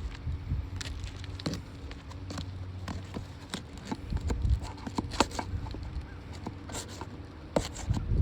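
Irregular light clicks, taps and scrapes, with a few low thumps, from hand work on asphalt roof shingles during a repair.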